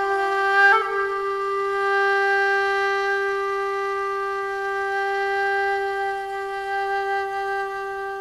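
Shakuhachi (Japanese end-blown bamboo flute) playing one long held note that lifts slightly in pitch under a second in, then sustains steadily and slowly fades.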